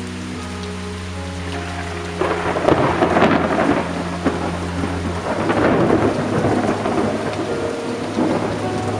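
Steady rain falling, with a clap of thunder breaking in about two seconds in, loudest around the three-second mark, then rumbling away over the next few seconds.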